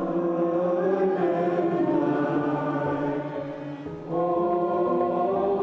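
A choir of voices singing together in long held notes, with a short dip before a new phrase begins about four seconds in.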